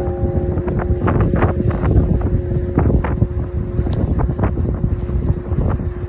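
A large bronze bell rung by light strikes of a wooden mallet on its rim, its hum held steadily throughout, under heavy wind buffeting the microphone.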